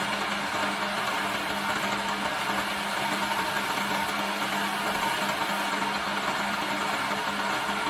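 Electric motor of a wood lathe running steadily with a hum, while a hand-held tool rubs on the spinning wooden spindle with a steady hiss.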